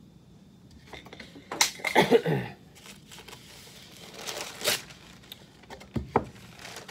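Paper towels rustling and being torn from a roll, a few sharp rips loudest about two seconds in and again near the middle, with a couple of knocks from handling near the end.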